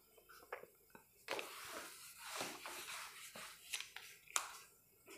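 Faint rustling of clothing against a clip-on microphone as a person moves, with a few light clicks.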